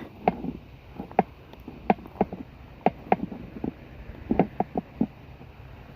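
Footsteps on the bank: about a dozen short knocks and crunches at an uneven walking pace, some in quick clusters.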